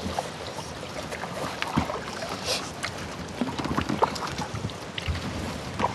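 A kayak being paddled: paddle splashing and water dripping, with scattered small knocks and clicks.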